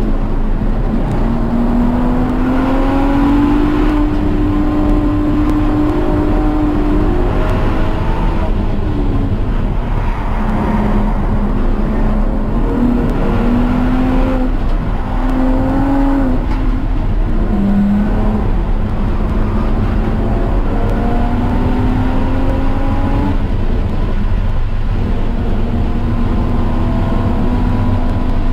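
Car engine running hard on a track lap, its pitch climbing as it accelerates, then dropping back several times through the stretch as it shifts and slows.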